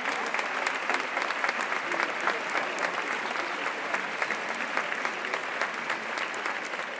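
Steady applause: many hands clapping together.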